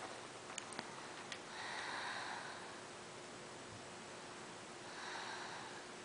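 A sleeper snoring softly: two long, breathy snores about three seconds apart.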